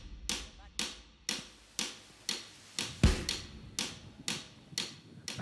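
Background music thinned to its drum beat: sharp snare-like hits, evenly spaced about twice a second, with the bass dropped out.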